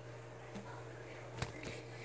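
Quiet steady electrical hum of the room, with a sharp click and a weaker one about one and a half seconds in from a hand handling the recording phone.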